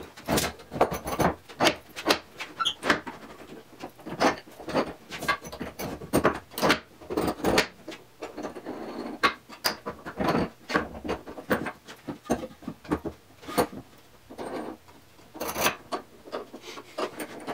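Homemade sliding Moxon vise being worked by hand: its 1/2-inch pipe clamps are cranked and the plywood chop shifted. The result is an irregular run of wooden knocks, clicks and rubbing.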